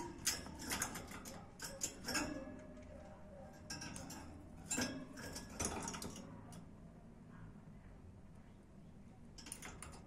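Budgerigars chattering in quick clicky chirps and short calls, busiest in the first seven seconds and sparser after that.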